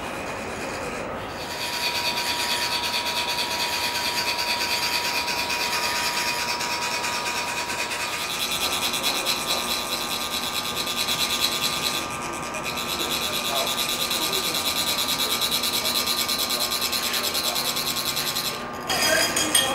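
Metal chak-pur sand funnels being rasped, a ridged rod drawn along the grooved tube, making a fast continuous scraping with a faint metallic ring. The rasping vibrates the funnel so a thin stream of coloured sand trickles out onto the mandala. It breaks off briefly a few times.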